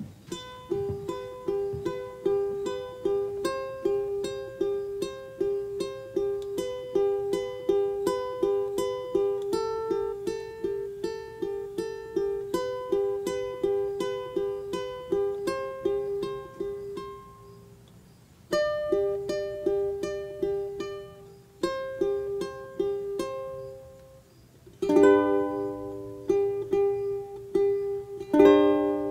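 Credits music on a plucked string instrument, picking a quick, repeating pattern of notes. It breaks off briefly about 18 seconds in, then comes back and ends on a few louder strummed chords.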